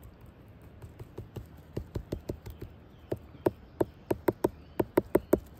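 A run of irregular sharp clicks and snaps, growing quicker and louder from about a second in, as a hand works around a porcini mushroom in dry twigs and pine litter.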